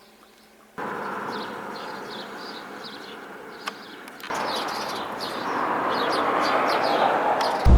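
Small birds chirping over a steady noisy outdoor background. The sound changes abruptly about a second in and again about four seconds in, and a loud low rumble cuts in right at the end.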